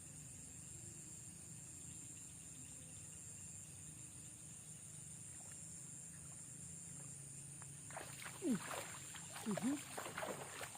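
Steady high-pitched insect chorus, crickets trilling without a break. Near the end, several short loud sounds sweep down in pitch.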